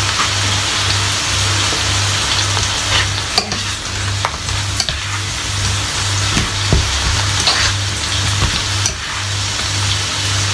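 Bacon and mushrooms sizzling steadily in a frying pan, with occasional sharp clicks as the food is stirred or turned. A low hum pulses underneath about twice a second.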